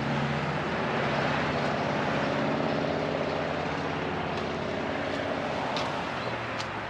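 A steady engine drone, level in pitch, growing louder through the first few seconds and fading toward the end.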